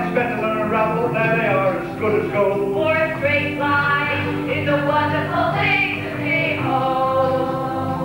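A school stage cast singing a song, with instrumental accompaniment keeping steady notes underneath.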